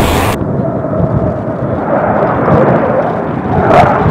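Low-flying fighter jet noise. A loud blast of jet roar cuts off abruptly just after the start and leaves a muffled rumble, and near the end a louder jet roar swells up as an F-15 passes low.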